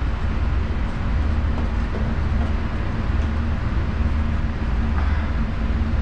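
Refrigerator compressor running with a steady low hum and hiss, working again and drawing about 0.8 A after being plugged into the wrong voltage, its overload protector having saved it.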